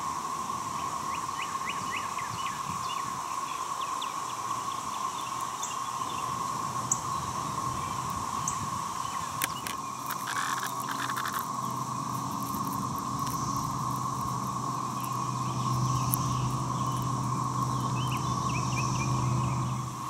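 Periodical cicadas chorusing: a steady, even drone that does not change, with a few bird chirps now and then and a low hum joining in the second half.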